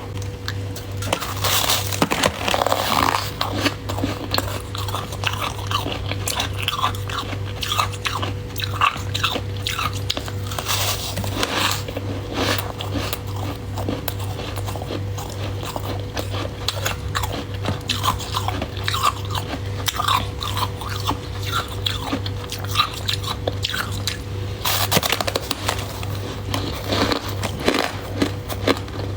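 Close-up crunching and chewing of crisp freezer frost, with many irregular crunches one after another. A steady low hum runs underneath.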